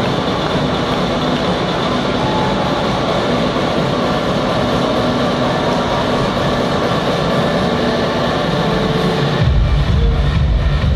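Large farm tractor engines running as the tractors drive through a hall, a steady mechanical rumble. About nine and a half seconds in, loud electronic music with heavy bass starts.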